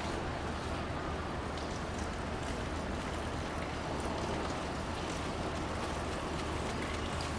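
Steady ambient noise: an even hiss over a constant low hum, with no distinct event standing out.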